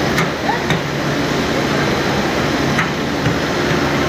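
Steady drone of factory machinery running, with a low hum, broken by about three short sharp knocks, two near the start and one a little under three seconds in.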